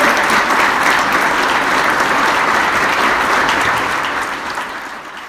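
Crowd of guests applauding, many hands clapping at once, then dying away near the end.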